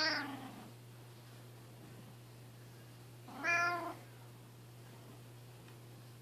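Domestic cat meowing twice: a short call right at the start and another about three and a half seconds in.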